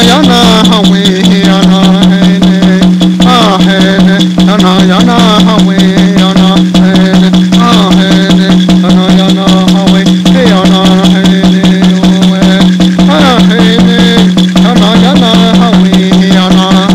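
Lakota prayer song: a rattle shaken in a rapid, steady beat, with a voice chanting in rising and falling phrases over a steady low drone.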